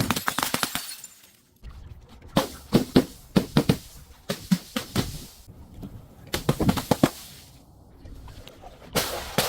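Brittle objects being crushed: clusters of sharp cracks and crunching, a few fast snaps at a time, coming in four or five bursts a second or two apart, with another burst near the end.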